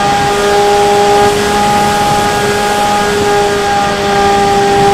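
Bixler 3 RC plane's electric motor and pusher propeller running at steady throttle in flight, a steady whine, with wind rushing over the onboard camera.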